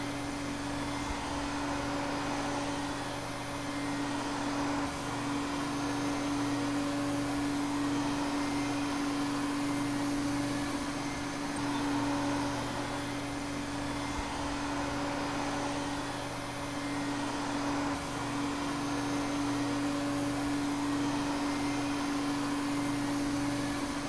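Vacuum cleaner running steadily: a constant motor hum over an even rush of air.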